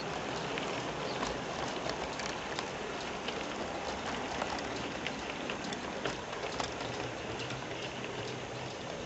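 00 gauge model goods train's wagons rolling past on the layout track: a steady rushing rattle with irregular clicks as the wheels cross rail joints.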